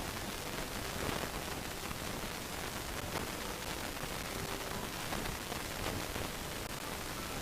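Steady hiss, like static, with no clear bird calls standing out.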